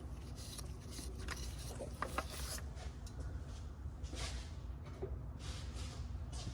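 Several hand-wiping strokes rubbing a part clean, each a soft hiss lasting about a second, with a couple of small clicks about two seconds in: the reused gasket of a PCV oil separator being wiped down before it is greased.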